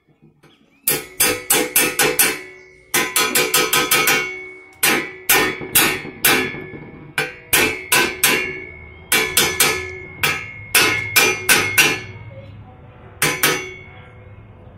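Claw hammer tapping a headset cup into the head tube of a bicycle frame to seat it: short runs of quick strikes, several a second, with brief pauses between runs. Each strike rings with a metallic tone from the frame.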